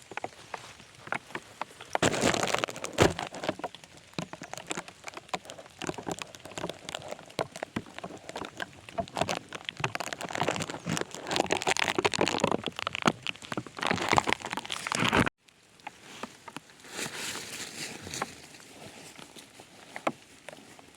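Rain patter mixed with close crinkling and crackling rustles, which cut off abruptly about fifteen seconds in, leaving fainter patter.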